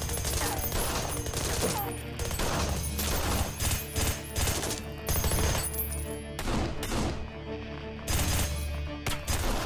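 Repeated volleys of gunfire from pistols and a submachine gun, single shots and rapid bursts, over a tense music score with a steady low bass.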